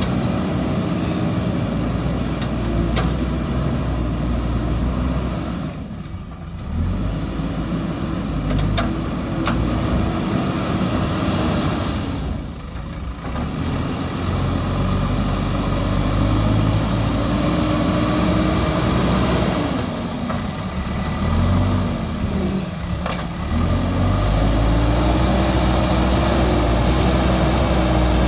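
JCB backhoe loader's diesel engine running under working load, its note dipping briefly three times and wavering in pitch near the end as the load changes.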